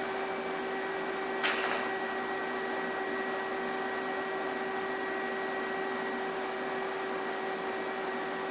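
Electric welder humming steadily while tack-welding steel fuselage tubes, with one short, sharp crackle about a second and a half in.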